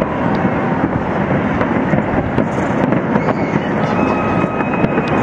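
Large fireworks display: many shells bursting in quick succession, a dense, unbroken run of bangs and crackles with no gaps.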